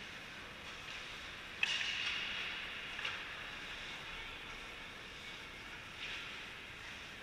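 Hockey skate blades scraping and hissing on the ice. A sudden sharp scrape comes about a second and a half in and fades over the next second or two, with a light click near three seconds and another scrape near six seconds.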